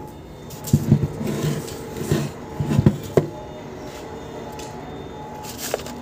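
Several short knocks and clatters in a few clusters, over a steady background hum.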